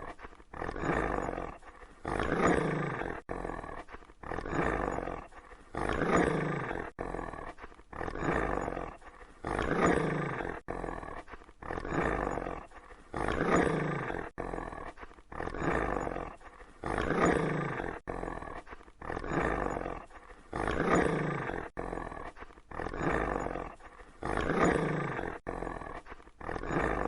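Female Great Dane growling, a deep rumbling growl that swells and fades in an even cycle about every three and a half seconds, the same growl repeating with sudden breaks between repeats.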